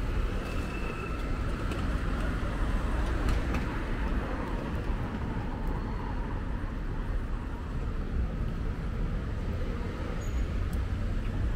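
City street traffic: a steady low rumble of cars and motorbikes passing through a busy junction.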